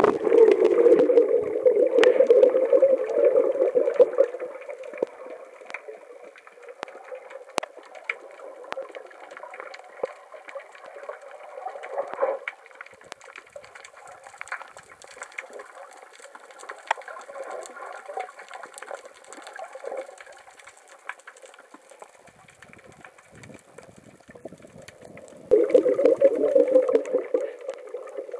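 Muffled underwater water noise, gurgling and rushing, heard through a camera's waterproof housing. It is louder for the first four seconds and again for the last three, with scattered sharp clicks throughout.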